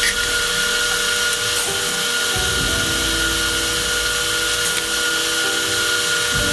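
Arc welding two pieces of a cut steel rocker bolt together: a steady, dense crackling hiss of the welding arc.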